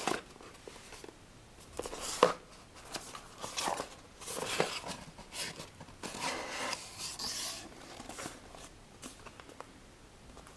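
Cardboard phone box being handled and opened: a series of short cardboard rubs and scrapes as the box is turned and its lid flap lifted, with a sharp click about two seconds in.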